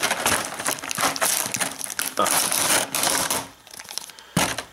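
Clear plastic packaging, a blister tray and the plastic bag around a toy, crinkling and crackling as hands handle it. It dies down about three and a half seconds in, with a single sharp click near the end.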